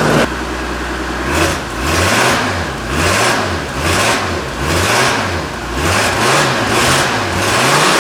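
Toyota 4M-E inline-six engine being revved again and again, its pitch rising and falling about once a second.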